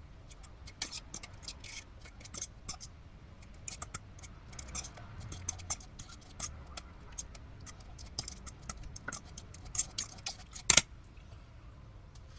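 Metal fork scraping and clinking against the inside of a stainless steel pot while stirring a wet mash of potatoes and barley, in many short irregular clicks, with one much louder clink about two seconds before the end.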